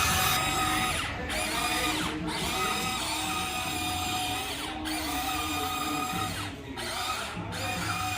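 Electric motors of a Huina 1594 RC excavator whining steadily as its functions are driven, cutting out briefly several times as the controls are let go.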